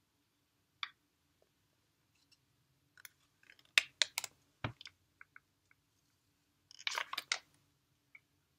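Paper crackling and crinkling as a long folded paper collector's guide is handled, unfolded and waved about, in short spells around four seconds in and again near seven seconds, with one dull thump just before five seconds.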